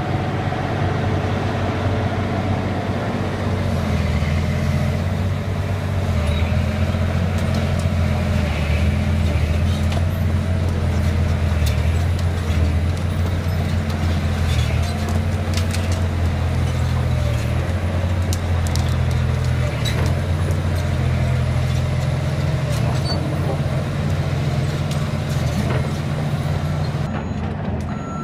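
Liebherr 964 crawler excavator's diesel engine running steadily under load as the machine tracks along, with occasional clanks from the tracks. In the last second a truck's reversing beeper starts up, beeping at an even rate.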